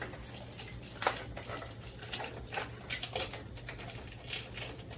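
Irregular light clicks, taps and clatter of small parts and wires being handled by hand, a few strokes each second, over a steady low hum.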